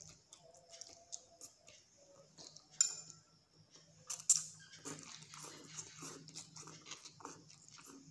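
A man slurping and chewing spicy instant noodle soup, with soft wet mouth sounds repeating about two to three times a second in the second half. Twice, about three and four seconds in, a metal fork or spoon clinks sharply against the glass bowl.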